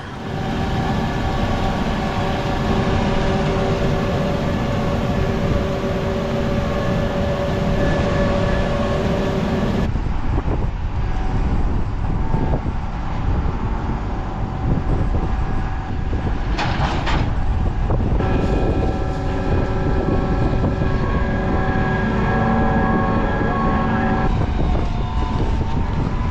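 Diesel engine of an empty grain tractor-trailer running steadily as the truck drives, with a brief hiss about two-thirds of the way through.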